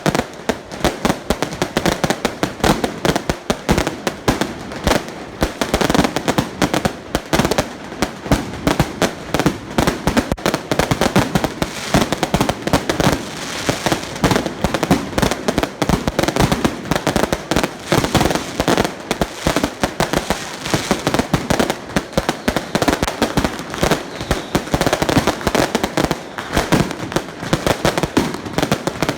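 A long string of firecrackers going off in a rapid, continuous barrage of sharp bangs.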